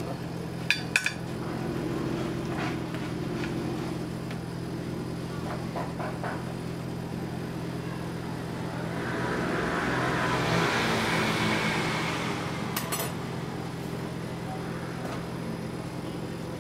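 Kitchen ambience: a steady low machine hum, with a few sharp clinks of dishes or metal utensils about a second in and again near the end. A swell of rushing noise rises and fades around the middle.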